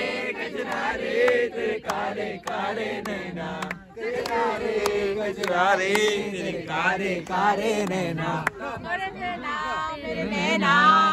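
A group of men and women singing together in unison, a loud chant-like song of several overlapping voices that swells near the end.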